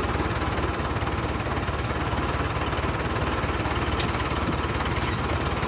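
Romanian tractor's diesel engine running steadily as the tractor drives, with a fast, even clatter heard close to the exhaust stack.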